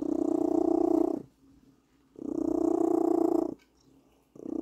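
Black-and-white domestic cat purring loudly close to the microphone, in three even bouts of about a second and a half with short quiet pauses between them.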